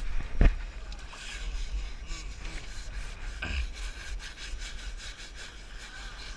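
Stiff plastic brushes scrubbing a baby elephant's wet hide: a quick, repeated rasping of bristles on skin, with a louder knock about half a second in and another around the middle.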